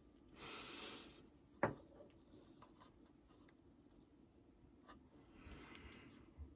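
Faint rubbing and sliding as a small 1/24-scale RC truck is handled on a wooden workbench, with one sharp tap about one and a half seconds in and another soft rub near the end.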